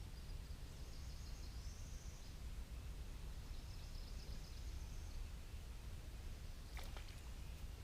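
Quiet outdoor background: a steady low rumble with a faint high-pitched buzz that comes twice, and a couple of light clicks near the end.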